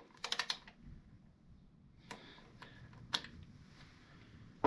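Light metal clicks from a torque wrench on the primary oil drain plug: a quick run of clicks just after the start, then two single clicks about a second apart.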